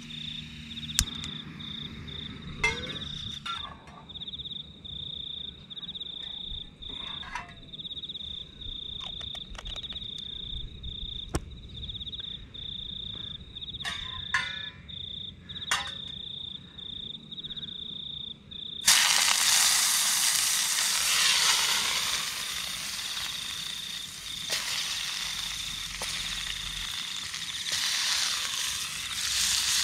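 A cricket chirping in a steady, pulsing trill, with a few sharp clicks and knocks. About two-thirds of the way through it cuts suddenly to food sizzling loudly in a frying pan.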